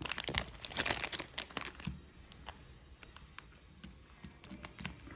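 Crinkly wrapping rustling and crackling as it is handled, dense over the first two seconds and then dwindling to scattered light clicks.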